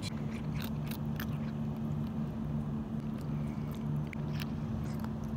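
Cat chewing a treat: irregular, sharp crunching clicks of its teeth, over a steady low hum.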